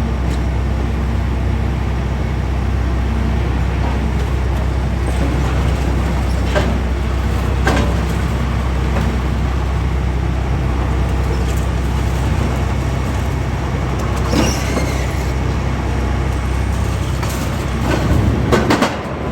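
Heavy diesel demolition machinery running steadily at a loud, low drone, with a few scattered knocks and a cluster of louder knocks near the end.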